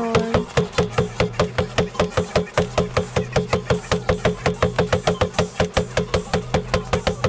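Boxing punches striking a bag in a rapid, even rhythm, about six hits a second, each a sharp knock with a short ring. The hits stop abruptly at the end.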